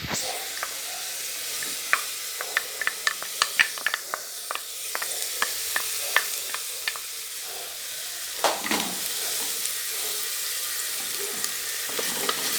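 Chopped onion and garlic sizzling in hot oil in a pan. A utensil clicks and scrapes against the pan as the food is stirred, with a run of sharp taps in the first half and a longer scrape later on.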